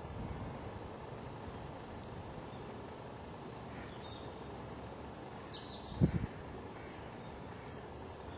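Quiet outdoor street ambience: a steady low background rumble, with a short low bump on the microphone about six seconds in and a few faint high bird chirps just before it.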